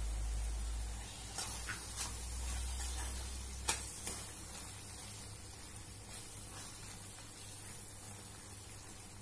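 Palak paneer sizzling at a simmer in a nonstick pan, with a spoon stirring it and a few light clicks against the pan. A low rumble stops about four seconds in.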